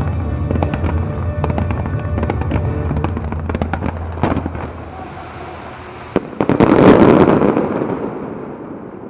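Fireworks display with rapid cracks and bangs over loud show music. The music stops about four seconds in. About six seconds in a sharp bang is followed by a dense swell of crackling from crackle shells, the loudest part, which fades over about two seconds.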